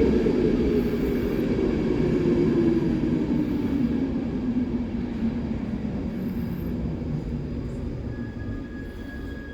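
A train rumbling on the tracks, its sound sliding steadily lower in pitch and fading. Near the end a thin, high wheel squeal sets in.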